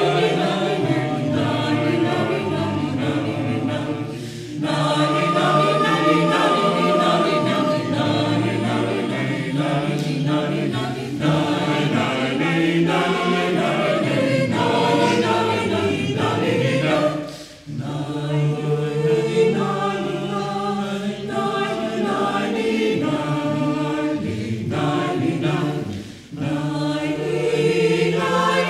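Mixed choir of women's and men's voices singing a cappella in several parts, sustained phrases with three brief breaks between them.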